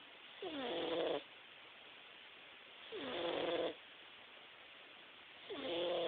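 Himalayan cat snoring in its sleep: three snores about two and a half seconds apart, each starting with a short upward slide in pitch and then holding steady.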